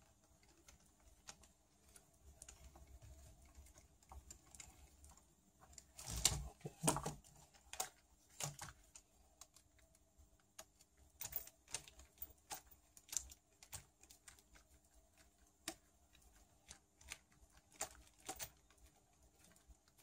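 Small, scattered clicks and taps of a hand screwdriver turning screws out of a Wltoys A959 RC buggy's plastic suspension arm and steering hub, with the plastic parts rattling as they are handled. A louder clatter of knocks comes about six to seven seconds in.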